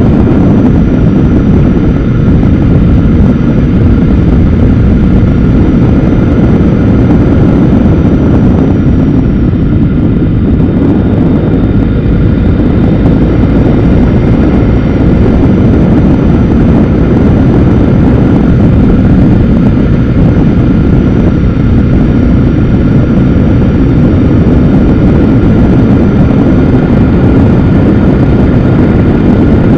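Motorcycle running steadily at road speed, its engine mixed with a loud, continuous low rumble of wind on the mounted camera's microphone.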